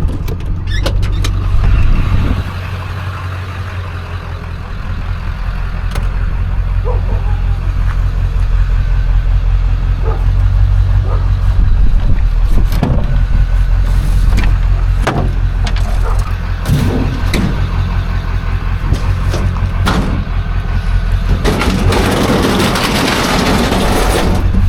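Vehicle engine idling steadily while scrap metal is shifted around, with scattered knocks and clanks. A longer rough scraping noise comes near the end.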